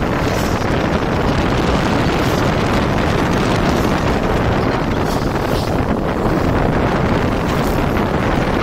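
Steady wind noise buffeting the microphone and road noise from a moving car at cruising speed, even and unbroken throughout.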